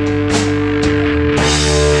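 Rock band playing live: held guitar notes over bass and drums, with regular cymbal strokes; the chord changes with a cymbal crash about one and a half seconds in.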